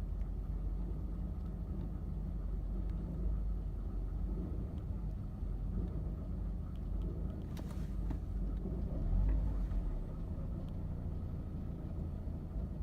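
1985 Mercedes-Benz 190E engine idling roughly, a steady low rumble that swells briefly about nine seconds in.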